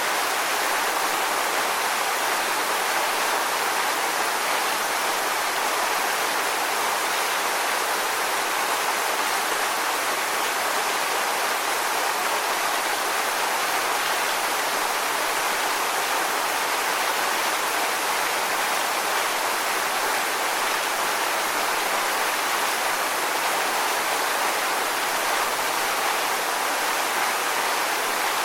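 Waterfall rushing steadily, an even hiss of falling water without change.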